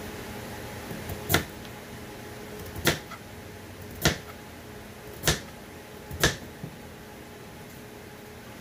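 Kitchen knife chopping vegetables on a cutting board: five single sharp chops about a second apart, over a faint steady hum.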